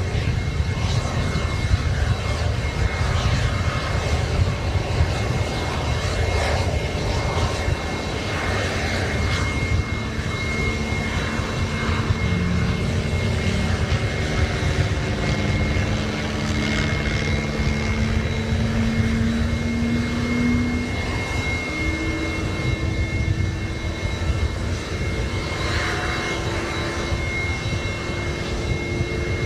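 Sukhoi Su-30MKI's twin AL-31FP turbofan jet engines running, a steady loud rush with a constant high-pitched whine; lower tones slowly rise in pitch through the middle.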